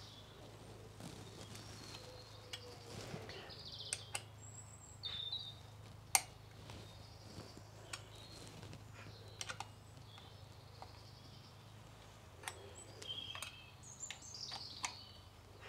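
Scattered light metallic clicks and taps of a 5 mm Allen key working the pentaclip bolt under a Brompton saddle as the clamp is loosened. The loudest click comes about six seconds in. Birds chirp faintly in the background.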